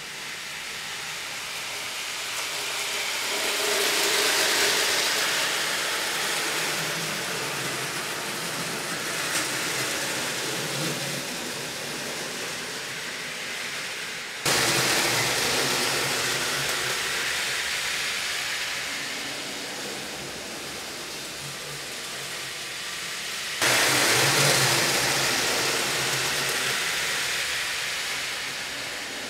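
Custom ERTL big-rig HO slot trucks running on plastic slot car track: a steady whir of small motors and pickups on the rails, swelling and fading as the trucks come round. The loudness jumps up suddenly twice, about halfway and near the end, then fades again.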